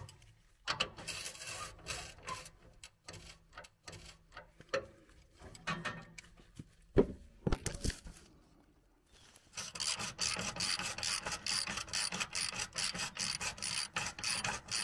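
Scraping and handling noises of tools against the mower's steering linkage, with a sharp knock about seven seconds in, then from about ten seconds a socket wrench ratchet clicking rapidly as a nut on the steering drag link is turned.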